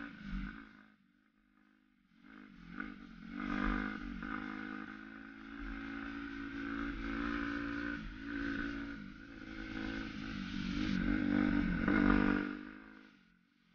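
Suzuki RM-Z250 four-stroke single-cylinder dirt bike engine revving hard under acceleration, pitch climbing and dropping through the gears. It goes quiet off the throttle about a second in, then pulls again, and eases off near the end.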